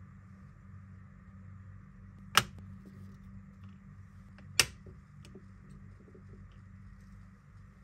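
Two sharp clicks about two seconds apart as discs are pressed onto the snap-in centre hubs of a steelbook's plastic disc trays, followed by a few faint handling ticks, over a steady low hum.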